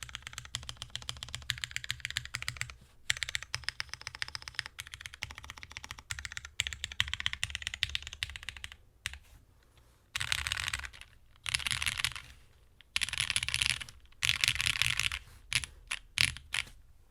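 Custom mechanical keyboard with Cherry MX Black linear switches on a UHMWPE plate and GMK keycaps, typed on steadily for about nine seconds. It then gives several fast bursts of keystrokes about a second long each, and a few single presses near the end.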